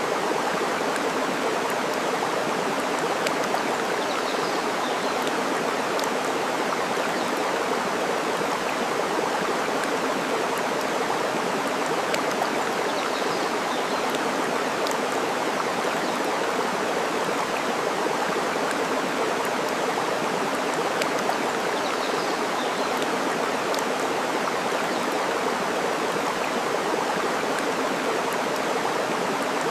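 Steady rush of running water, with a few faint sharp crackles from a wood fire and a few faint bird chirps scattered through it.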